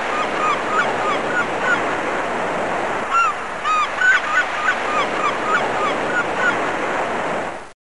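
A flock of gulls calling, many short overlapping squawks over a steady rushing background. It cuts off suddenly near the end.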